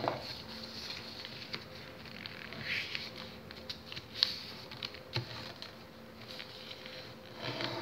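A sheet of printed paper being folded and creased by hand on a hard table: soft rustling and sliding with scattered small crinkles and taps. The sharpest tap comes about four seconds in.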